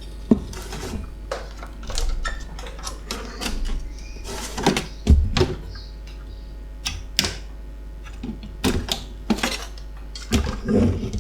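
Irregular clicks, taps and clatter from handling the opened TV set's chassis and tools, over a steady low hum.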